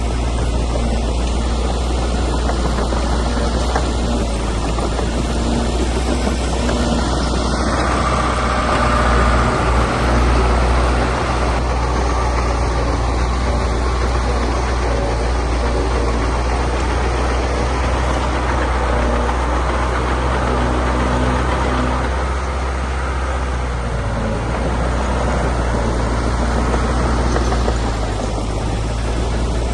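Heavy earthmoving machine's diesel engine running steadily, a little louder for a few seconds about eight seconds in.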